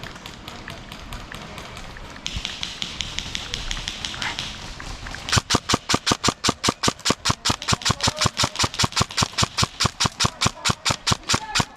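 Airsoft gun firing a long, steady string of sharp shots, about seven a second, starting about five seconds in. Before it, a fainter, faster rattle of more distant airsoft fire.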